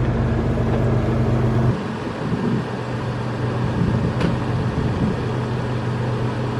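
Third-generation Toyota 4Runner's engine idling with a steady low hum that drops lower and quieter a little under two seconds in, then runs on evenly. A brief sharp tick comes about four seconds in.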